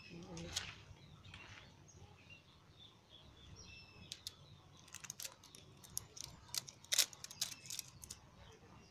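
Electrical tape being picked at and peeled off its roll: a run of sharp crackling clicks in the second half. Faint bird chirps sound in the background.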